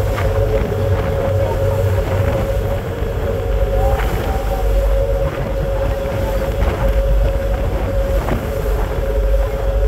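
Passenger ferry's engines running with a steady drone while under way, with wind buffeting the microphone on the open deck.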